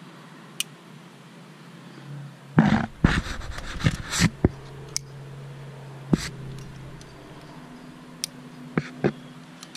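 Climbing gear handled close to the microphone: metal carabiners and the rack clinking, with a loud cluster of knocks and rubbing about two and a half to four and a half seconds in, then a few single sharp clicks.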